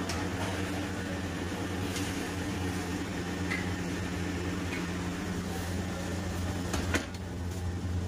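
Steady low hum of a kitchen exhaust fan, with a long ladle clicking a few times against a large aluminium pot as the dal is stirred; the sharpest click comes about seven seconds in.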